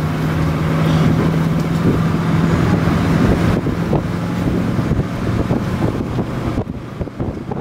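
Car driving, with engine hum and road and wind noise; a steady low hum fades out about five seconds in.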